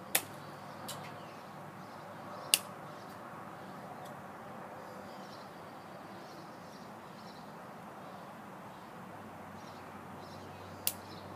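Small scissors snipping twigs off a young bonsai: a sharp snip right at the start, a fainter one just after, another about two and a half seconds in, and one more near the end.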